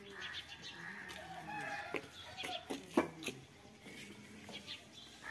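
Chickens clucking on and off, with a single sharp knock about three seconds in.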